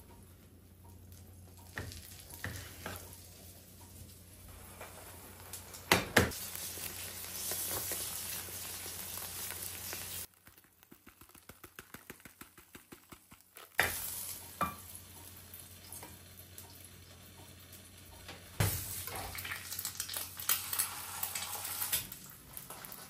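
Food sizzling in a frying pan, with the clinks and scrapes of a utensil stirring it. The sizzle comes and goes, and in a quieter stretch in the middle there is a quick run of regular ticks.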